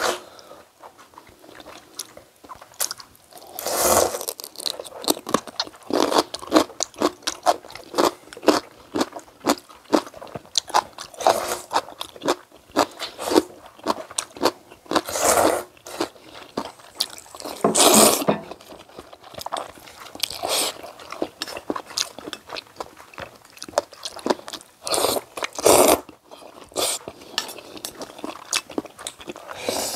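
Close-miked eating of maesaengi oyster noodle soup: frequent wet chewing and mouth clicks, with several louder slurps of noodles and broth, about a second each, spread through.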